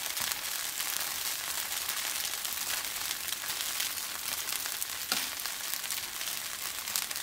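Oil sizzling and crackling steadily under a sama-rice dosa on a hot flat griddle (tawa) as it fries crisp. There is one sharper click about five seconds in.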